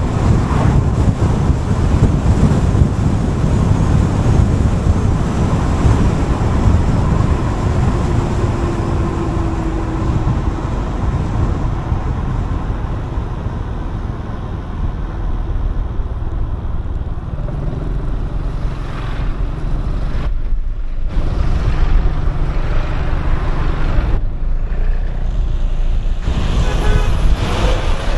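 Gilera Fuoco 500 three-wheeled scooter's single-cylinder engine running on the move, mixed with steady road and wind noise.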